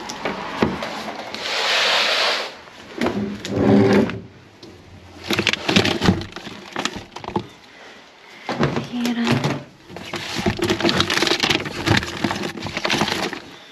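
Plastic-wrapped food packs, cartons and bottles crinkling, rustling and knocking against each other as they are rummaged through inside a plastic wheelie bin, in irregular bursts of crackles and clatter.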